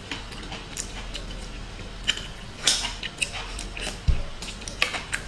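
Seafood being eaten: irregular clicks and taps of shells and utensils, with a few louder knocks, over a steady low hum.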